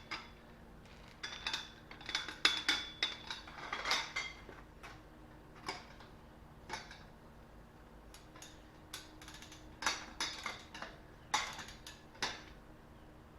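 Metal clinks and clicks of a hand wrench and socket on lug nuts as the nuts are tightened by hand, by feel rather than with a torque wrench: irregular sharp clinks, some briefly ringing, over a faint steady hum.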